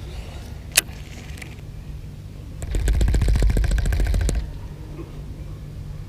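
A baitcasting reel being cranked in a quick burst, giving a rapid even ticking for about a second and a half near the middle, after one sharp click about a second in.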